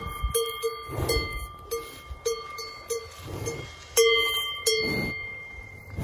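Cowbell on a cow's neck clanking irregularly as the cow moves its head, about a dozen ringing strikes, the loudest about four seconds in.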